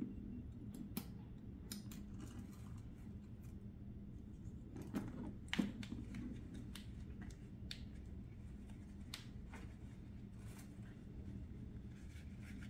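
Scattered light clicks and taps of a handbag's small metal lock and zip hardware being handled, over a low steady room hum.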